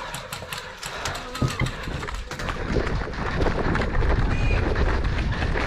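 A player moving on foot across the airsoft field: a run of sharp clicks and knocks, then louder low rumbling of footfalls, gear and movement against the microphone.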